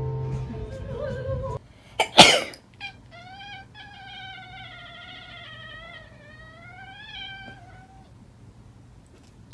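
Operatic singing with music cuts off about a second and a half in, followed by a sharp knock. Then a cat gives one long, wavering yowl lasting about five seconds.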